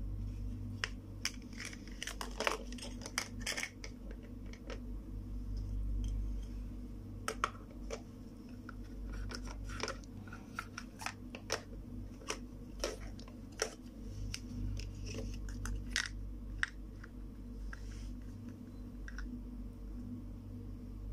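Irregular light clicks and taps of hard plastic toy kitchen pieces (play food, a small pot and pan, lids) being handled and set against each other, over a steady low hum.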